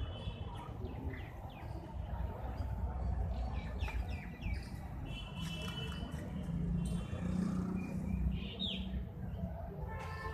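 Small birds chirping in short, quick falling notes over a steady low rumble of outdoor background noise.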